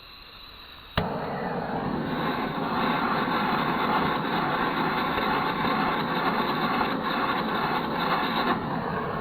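Gas blowtorch lit with a sudden pop about a second in, then its flame burning with a steady loud hiss while heating the lead-casting mould, easing slightly near the end.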